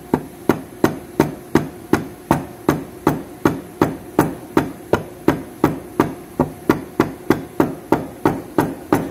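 A mallet tapping a shaft assembly into the cast-iron cradle housing of a Bridgeport milling machine, about two dozen steady, even taps at roughly two and a half a second, driving the part home into its bore.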